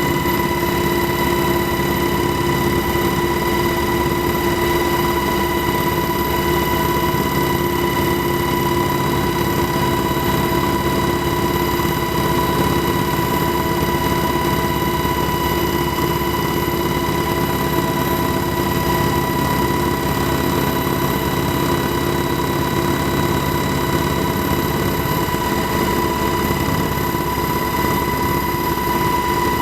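A motor or engine running steadily, holding a constant hum with several fixed tones and no change in speed.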